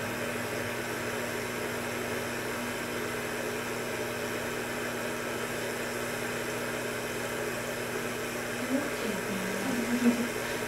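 Steady low electrical hum with an even fan-like hiss, the constant running noise of equipment in a small exam room.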